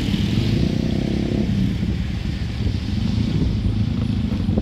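Motorcycle engines running at low speed in slow traffic: a steady drone whose pitch shifts as the bikes move.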